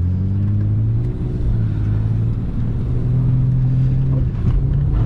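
Naturally aspirated Ford FG Falcon engine heard from inside the cabin during a slide. The revs rise and fall twice: they climb in the first second and drop, then climb again from about three seconds in and fall back.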